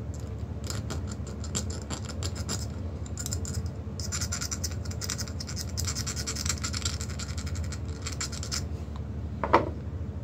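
Steel burnisher rubbed in quick back-and-forth strokes over a sterling silver filigree pendant, a steady scratching that polishes the pickled, white silver to a shine. The scratching stops about a second before a short, louder falling sound near the end.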